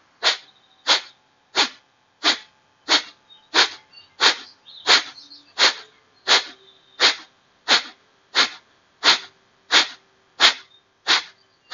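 Kapalabhati (skull-polishing breath): a steady series of sharp, forceful exhalations through the nose, about three every two seconds, each driven by a contraction of the belly, with quiet passive inhales between.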